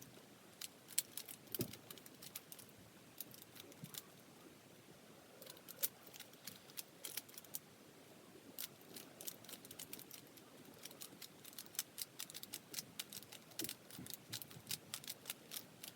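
Rubik's cube being turned quickly by hand during a solve: the plastic layers click and clack in fast, irregular bursts with short pauses between them.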